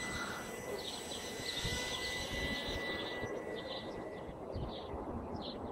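Walkera QR LadyBird micro quadcopter's small coreless electric motors whining steadily in flight, the whine dying away about four seconds in. A few short high chirps near the end.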